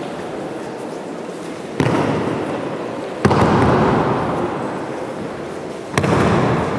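Aikido breakfalls on tatami mats: three sharp slaps of a body and arm hitting the mat, each ringing out briefly in a large sports hall.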